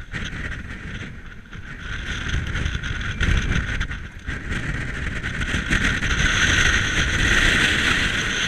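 Strong gusting wind buffeting the microphone of a camera on a mountain bike riding into a headwind: an uneven low rumble throughout, with a higher rushing noise growing louder over the second half.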